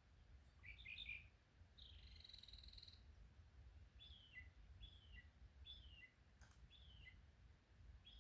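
A bird calling: a few quick chirps, a short buzzy trill, then a run of five short down-slurred whistles repeated at an even pace, over a faint low rumble.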